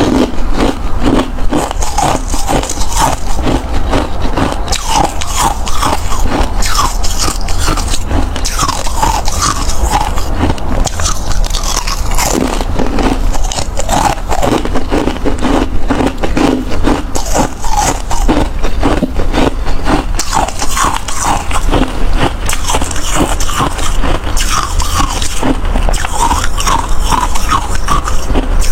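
Close-miked chewing of hard crushed ice: a dense, continuous crunching and crackling of bites.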